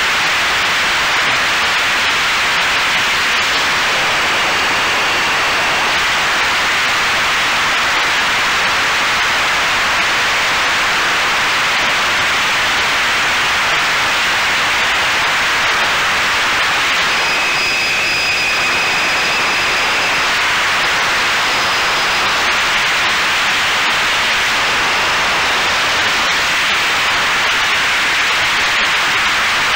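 Steady rushing noise of an RC scale OV-10A Bronco model in flight, as picked up by its onboard camera: wind and propeller noise. A faint high whine comes up briefly past the middle.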